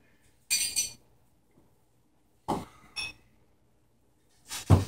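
A beer bottle is opened, the cap coming off with a short hiss, then glass clinks with a brief ring as the beer is poured into small tasting glasses. A louder knock comes near the end.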